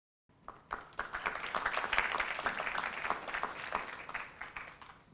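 Audience applauding; the clapping starts about half a second in and dies away near the end.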